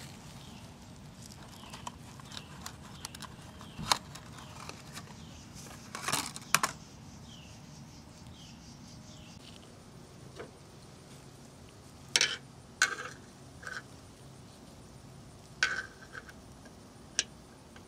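Handling noises as gloved hands work with a headlight bulb, its box and a screwdriver: scattered sharp clicks and knocks, a pair about six seconds in and a cluster later on.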